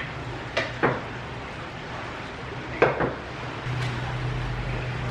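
Plastic bowls and kitchenware knocking and clattering a few times as they are handled. A steady low hum sets in near the end.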